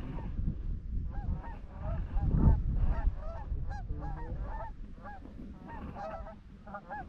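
Canada geese honking, many short overlapping calls from a flock close by. A low rumble swells and is loudest about two and a half seconds in.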